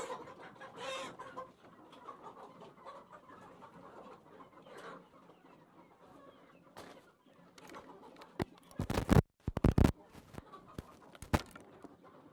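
Chickens clucking, with a cluster of loud knocks and bumps about nine to ten seconds in.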